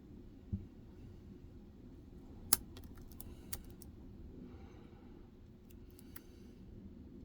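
Lock pick working inside a Medeco six-pin cylinder: scattered small metallic clicks and light scraping as the pins are lifted and turned, with a sharper click about two and a half seconds in and a soft bump near the start.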